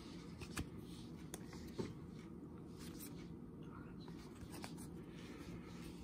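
Basketball trading cards flipped through by hand: faint sliding of card against card with scattered light ticks, two of them a little sharper about half a second and nearly two seconds in.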